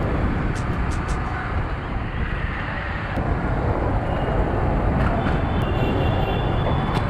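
Motorcycle riding through traffic: wind rushing and buffeting over the microphone, with engine and road noise underneath, steady throughout.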